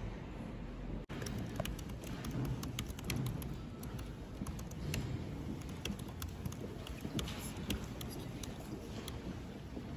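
Light, irregular clicking of a laptop's keys and trackpad, several clicks a second, over steady low background noise.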